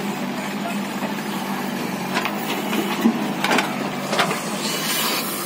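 Backhoe loader's diesel engine running steadily while its bucket digs into soil. A few short scrapes and knocks come in the second half.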